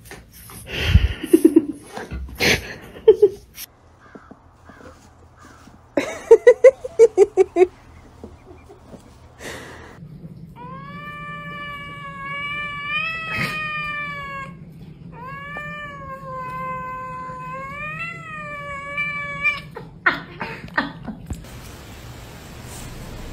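Kitten giving two long, drawn-out meows of about four seconds each, wavering and rising in pitch. Before them come short animal cries and knocks.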